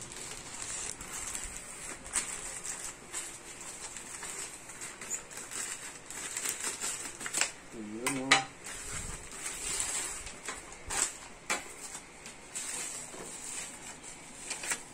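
Plastic packaging rustling and crinkling as a courier pouch and a bubble-wrapped parcel are handled and opened, with irregular light clicks and taps from the handling.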